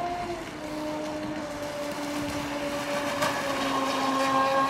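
Radio-controlled speedboat's motor running at speed: a steady whine that drifts a little lower in pitch and grows louder toward the end.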